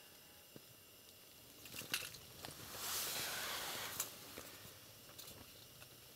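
Clothing rustling close to the microphone for about a second, with a few light clicks around it, as a fisherman shifts his arm and body; otherwise a quiet background.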